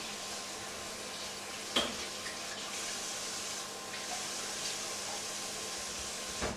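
Inverter microwave oven running, a steady fan whir with a faint hum. A sharp click sounds about two seconds in, and near the end another click comes as the running noise drops.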